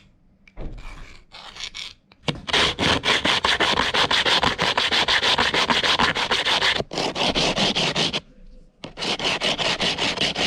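A freshly cut piece of aluminium tube being deburred by hand against an abrasive, with rapid back-and-forth scraping strokes at about five a second. The strokes come in several runs separated by short pauses, the longest run lasting several seconds.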